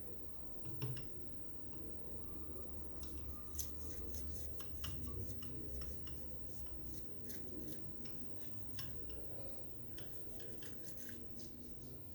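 Small hard objects being handled: one knock about a second in, then an irregular run of short scratchy clicks and scrapes from about three seconds in that thin out near the end.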